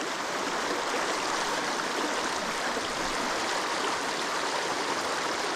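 Mountain stream rushing and splashing over rocks in a steady, even flow.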